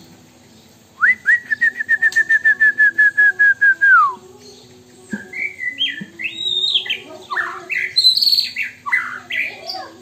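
White-rumped shama singing: a fast run of a dozen or more identical whistled notes, falling slightly in pitch and ending in a downward slide, then a jumbled warble of varied higher phrases. Its song is filled with phrases copied from the hwamei (Poksay Hongkong) and the wambi.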